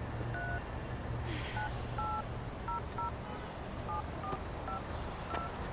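Mobile phone keypad touch tones: about ten short two-note beeps at irregular intervals, as keys are pressed one at a time, over a low steady hum.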